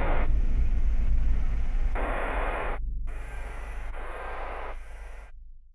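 Horror sound-logo design: a deep, steady rumble under surges of hissing noise. One surge comes about two seconds in and a weaker one after three, and the whole thing fades steadily toward the end.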